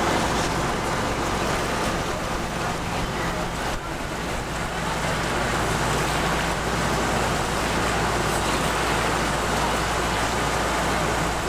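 Passenger motor launch under way: a steady engine hum beneath the continuous rush of water along the hull.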